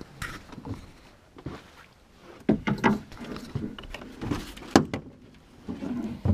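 Irregular knocks and clunks in a small flat-bottomed boat: people and gear bumping against the hull and seats as they move about, with a few sharper thumps.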